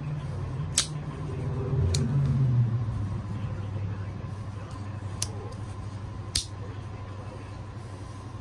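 Blades of an Ulster Boy Scout camp knife snapping into place against their stainless steel springs: four sharp clicks in two pairs about a second apart, over a steady low hum.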